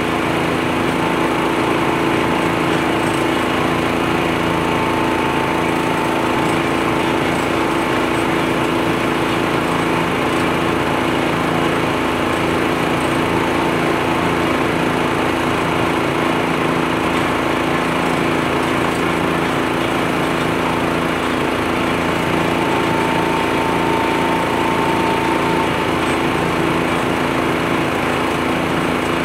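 A U-Mount leaf blower mounted on a John Deere 1025R compact tractor, running steadily under load as it blows leaves across the grass: one constant, loud engine-and-fan drone.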